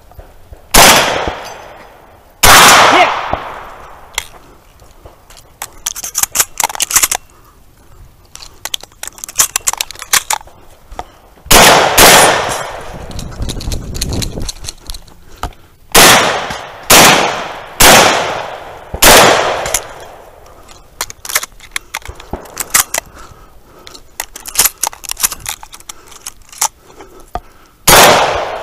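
Shotgun fired close up, about nine loud shots in uneven groups: two in the first few seconds, a pair about 12 seconds in, four in quick succession from about 16 seconds, and one more near the end. Quieter clicks and rattles come between the shots.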